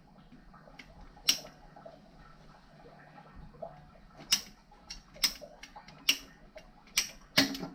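Sharp clicks and knocks of plastic plumbing pipe and fittings being worked by hand while a crooked pipe cut is squared up: one click, then five more at roughly one a second in the second half.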